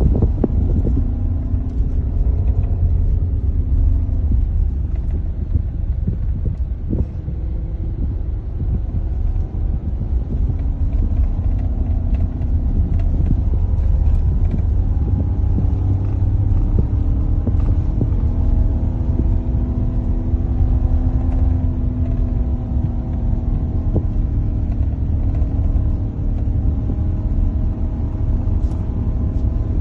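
Car driving on an unpaved gravel road, heard from inside the cabin: a steady low rumble of tyres and road with the engine note drifting slowly up and down, and a few faint knocks.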